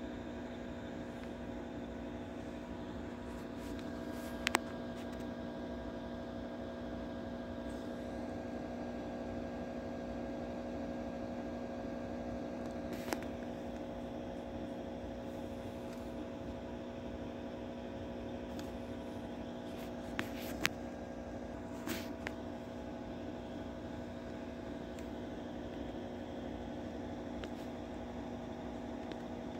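Steady hum of running equipment, with a few steady tones in it, broken by a handful of short sharp clicks.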